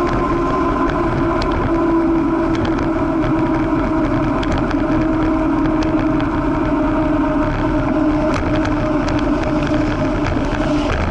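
Bicycle riding on an asphalt road, heard from a camera mounted on the bike: steady noise of wind on the microphone and rolling tyres, with a continuous hum that drifts slightly in pitch and occasional small rattles.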